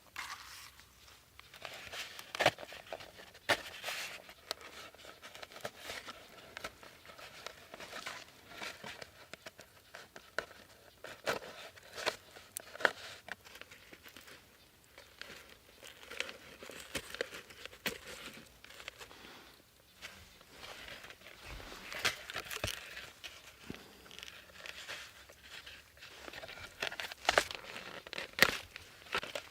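Hands working dry plant stems and fibres, with irregular crinkling, cracking and tearing: the stripping and twisting of stalks for cordage and basket-making. The sharpest cracks come about two and a half seconds in, near the middle, and again toward the end.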